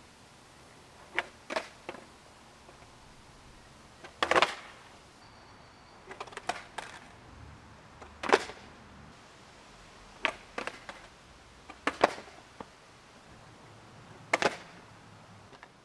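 Skateboard clacking on asphalt during freestyle flip tricks: about a dozen sharp knocks of the deck, tail and wheels hitting the ground, in irregular groups. The loudest comes about four seconds in.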